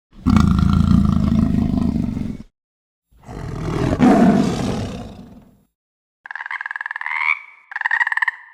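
A large animal roaring twice: a two-second roar, then a second that swells and fades. Near the end a different, higher, rasping call follows.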